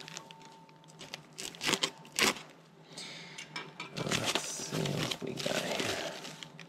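Packaging rustling and crinkling as a bike saddle is slid out of its soft white sleeve and plastic bag, with two sharp snaps around two seconds in.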